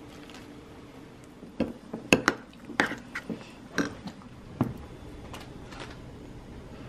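Tableware clinking and knocking, a metal spoon against ceramic bowls: a quick run of about eight sharp clinks over a couple of seconds, the loudest in the middle, over a low steady hum.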